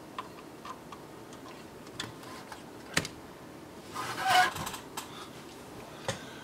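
Scattered small clicks and taps of hands handling the plastic and metal parts of an opened thin client. The sharpest click comes about three seconds in, a brief scrape follows about a second later, and one more click comes near the end.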